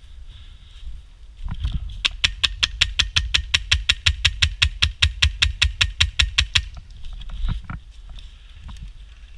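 Airsoft gun firing a steady, rapid string of about thirty evenly spaced shots, six or seven a second, for about four and a half seconds, then one more sharp knock.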